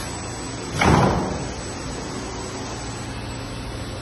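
A single loud thump about a second in, fading within about half a second, over a steady machinery hum.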